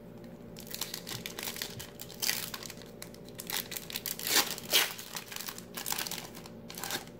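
Shiny foil wrapper of a 1996 Score Select football card pack crinkling and tearing as it is pulled open by hand: a run of sharp crackles, loudest about two seconds in and again around four and a half seconds.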